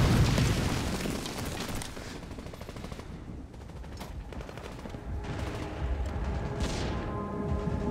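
Battle sound effects: rapid gunfire that thins out over the first two seconds or so, then a few single shots. Soft music comes in near the end.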